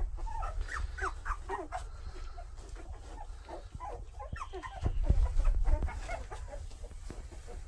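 Two-week-old Labrador retriever puppies squeaking and whimpering: many short, high, overlapping calls, busiest in the first couple of seconds. A burst of low rumbling noise comes about five seconds in.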